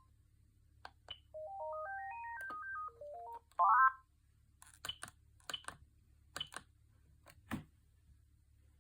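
Siemens Gigaset C450 cordless handset playing a short ringtone: a simple one-note-at-a-time melody stepping up and down, then a loud, rapid warbling trill. It is followed by about seven keypad button clicks, some with a short high beep.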